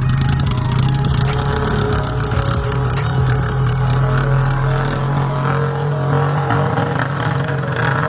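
An engine running steadily, its tone changing about six and a half seconds in.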